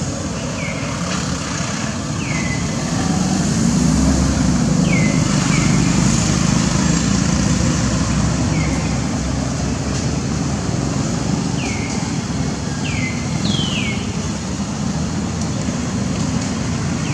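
Road traffic running past, with one vehicle passing louder a few seconds in. Short high chirps that fall in pitch repeat throughout.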